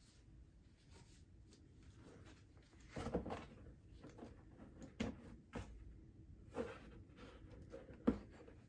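Faint handling sounds of a plastic action figure and its small cloth shirt being worked by hand: soft rustling with a few light plastic taps and knocks, the sharpest about three, five and eight seconds in.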